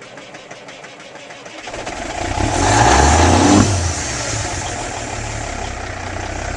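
Engine sound effect: an engine revving up, loudest about three seconds in, then running on steadily.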